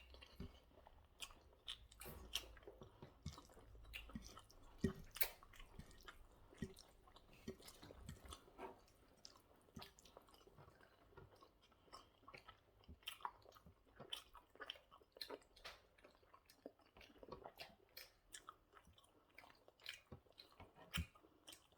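Faint close-up chewing of spaghetti bolognese, with many small, irregular wet mouth clicks and smacks.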